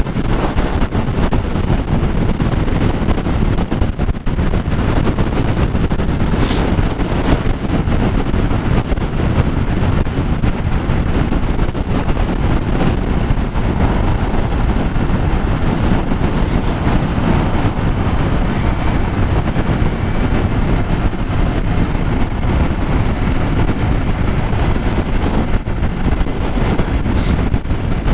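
Strong wind buffeting the microphone of a moving Yamaha XTZ Crosser motorcycle: a loud, steady low rush with engine and road noise underneath.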